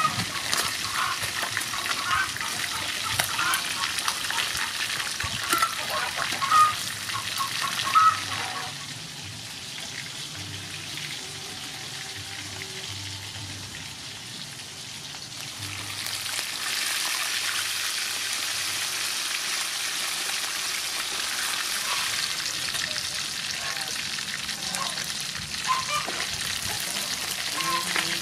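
Sea fish pieces frying in oil in an aluminium wok: a steady sizzle, with a metal spatula scraping and clinking against the wok through the first eight seconds or so. The sizzle drops quieter for several seconds, then comes back loud about sixteen seconds in.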